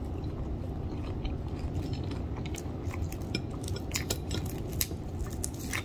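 Crispy fried chicken wings being handled and pulled apart, the breading crackling in scattered small clicks that grow busier in the second half, over a steady low background rumble.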